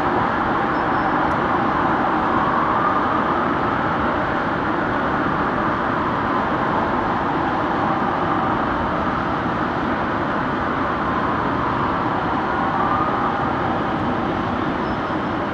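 Fire engine siren in a slow wail, faint and rising and falling every few seconds, over a steady rush of city traffic noise that is the loudest part.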